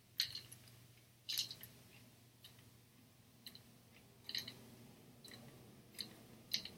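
Light, scattered clicks and scrapes from a tripod's detachable attachment head being handled and spun on its mounting screw. There is no ball bearing, just metal turning on metal. The clicks come about once a second, the sharpest two in the first second and a half.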